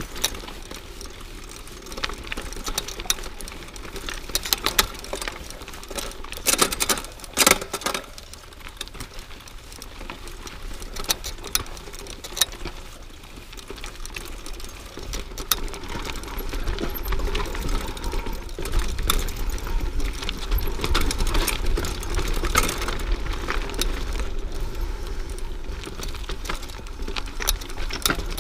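Mountain bike riding a rough dirt singletrack: tyres crunching over the ground and the bike clicking and rattling over bumps, with several louder knocks about a quarter of the way in. A low wind rumble on the microphone grows louder from about halfway.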